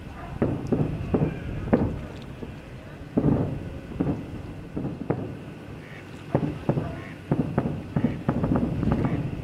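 Aerial fireworks shells launching and bursting in an irregular run of sharp booms, about one to two a second, coming closer together near the end.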